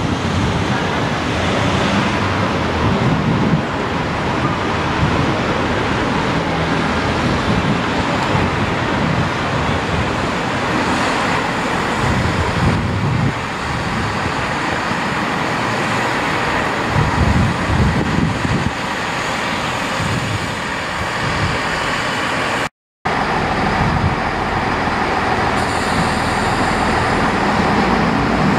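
Great Western Railway Networker Turbo diesel multiple unit running as it approaches, a steady engine and rail noise under irregular wind buffeting on the microphone. The sound drops out for a moment about two-thirds of the way through.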